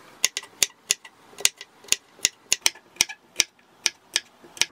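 A kitchen knife slicing peeled garlic cloves on a wooden cutting board: sharp taps of the blade hitting the board, about three a second and unevenly spaced.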